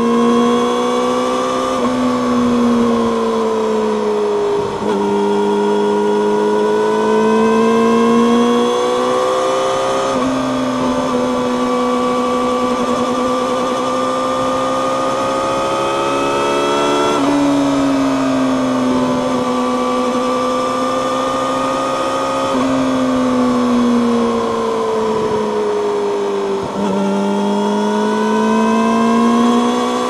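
Yamaha YZF-R6 inline-four running through an Akrapovic megaphone slip-on exhaust while riding. The engine note rises and falls with the throttle, with a few sudden steps in pitch at the gear changes.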